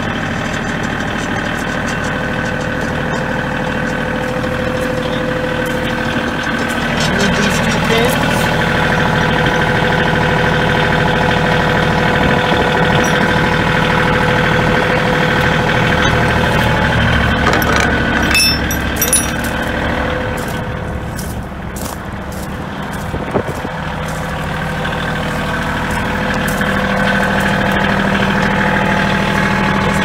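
Kioti compact tractor's diesel engine running steadily, its loudness and pitch shifting a few times. A few sharp metal clicks are heard in the second half.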